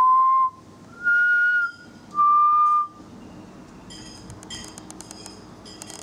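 Three long, clear whistled notes, each held at one steady pitch with short gaps between, the middle one the highest; from about four seconds in, softer quick clicks and chirps.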